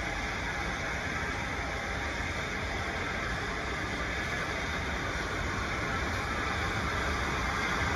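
GWR Castle-class 4-6-0 steam locomotive approaching under steam, heard as a steady train noise that grows slowly louder.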